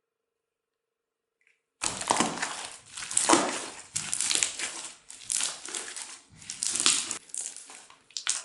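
Crunchy slime being squeezed and worked by hand, giving irregular crackling and popping bursts that start about two seconds in.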